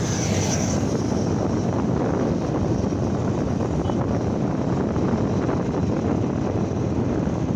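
Steady rush of wind buffeting the microphone, over the road and engine noise of a motorcycle riding at speed along a highway.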